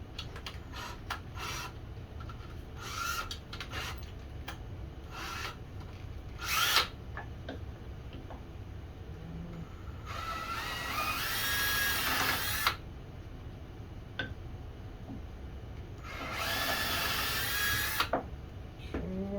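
Power drill run in short bursts, then two longer runs of a couple of seconds each, its whine rising as it spins up, over a steady low hum.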